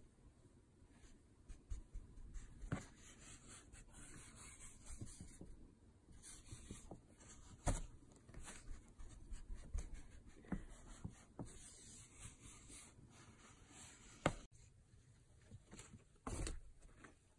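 Kittens' paws and claws scratching and scrabbling on carpet and against cardboard box walls: soft irregular rubbing with scattered light clicks and a few sharper knocks, about eight seconds in, about fourteen seconds in, and near the end.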